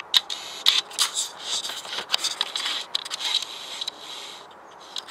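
Handling noise on a GoPro camera: irregular scraping, scratching and clicks as fingers grip and move it close to a face.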